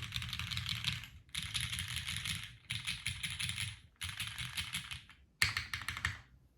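Typing on a custom mechanical keyboard with lubed Cherry MX Black Hyperglide linear switches, an aluminum plate, an O-ring mount and GMK keycaps. It comes as about five fast runs of keystrokes, each about a second long, with short pauses between them.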